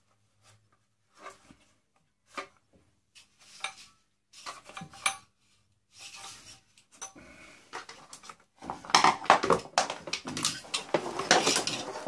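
Hard plastic and metal parts of a vacuum cleaner's motor housing being handled and pulled apart: scattered clicks and knocks at first, then dense clattering and rattling over the last few seconds.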